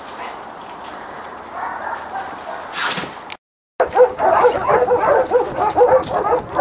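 Dog whining and yipping in rapid, short, high-pitched calls. The calls are softer in the first half, then louder and denser after a brief silence about halfway through.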